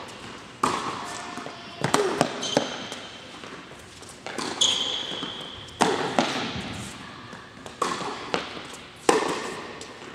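Tennis rally on an indoor hard court: sharp racket strikes and ball bounces about once a second, each echoing in the large hall. A brief high squeak, typical of a shoe on the court, comes a little before the middle.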